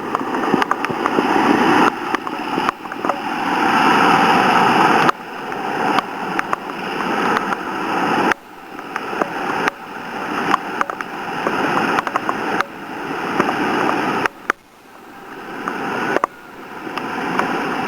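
Floodwater roaring as it pours over a flooded stone walk bridge like a waterfall. The rushing noise builds gradually and then drops off suddenly several times, with small clicks scattered through it.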